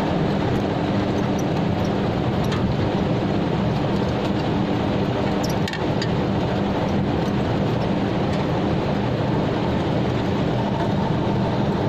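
Steady mechanical drone with a low, even hum, like nearby machinery running, with a few faint clicks of hands and tools on wiring.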